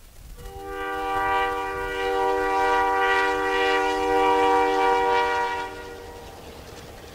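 Train air horn sounding one long, steady multi-note chord for about five seconds, starting about half a second in, over the low rumble of a train ploughing through deep snow.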